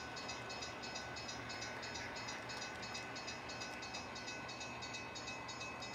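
HO-scale model passenger train running past on the layout: a quiet, steady running sound with a few faint steady tones and a rapid, even light ticking.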